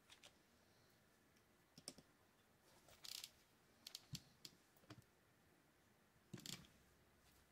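Faint, scattered clicks and knocks from a Shimano TLD 30 two-speed fishing reel being handled and turned over, with two brief louder scrapes about three seconds in and again near the end.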